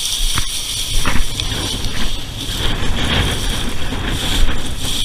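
Wind rumbling across the microphone of a gun-mounted shot camera carried through tall dry prairie grass, with a few faint ticks about a second in.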